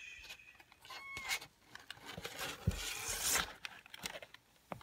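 Tissue paper and a towel rustling and scraping in a cardboard box as a hand moves among small kittens, with a soft knock on the box in the middle. A short, high kitten mew about a second in.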